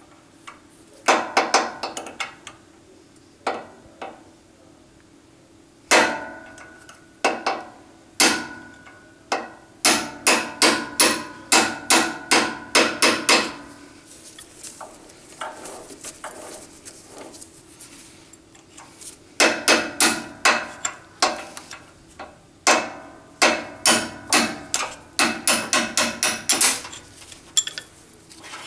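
Hammer tapping a 4 mm pin punch to drive a spring pin out of a Grizzly G0752 lathe: sharp metal-on-metal taps that each ring briefly. They come in quick runs of about four or five a second, with pauses of a few seconds between runs.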